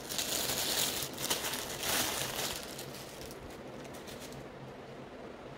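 Clear plastic poly bag crinkling and crackling as it is handled and pulled open to take out a clothing item. It is loudest over the first couple of seconds, then fades to faint rustling.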